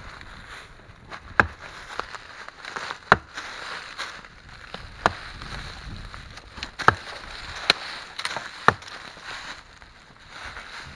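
Hatchet chopping into a standing tree's trunk: about six sharp strikes a second or two apart, cutting openings through the bark into the inner wood for hack-and-squirt herbicide injection.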